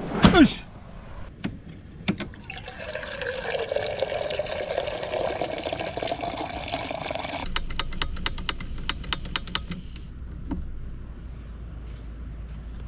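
Water poured into a pot or kettle to make coffee, the gurgling pitch rising steadily as the vessel fills over about five seconds. It is followed by a couple of seconds of rapid ticking.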